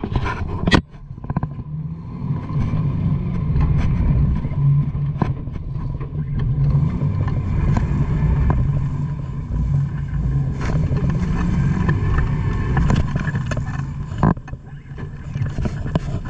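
Jeep engine running hard with a low, steady rumble, straining to pull a stuck Jeep free, with a sharp knock about a second in and scattered lighter clicks.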